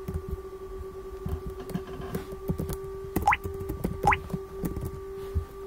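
Scattered computer keyboard keystrokes and clicks over a steady electrical hum, with two short rising squeaks a little after three seconds and again about a second later.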